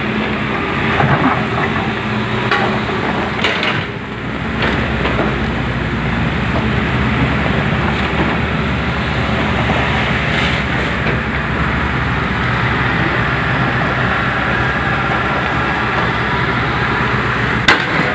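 Hyundai hydraulic excavator's diesel engine running steadily under a constant noisy hiss. A single sharp knock comes near the end.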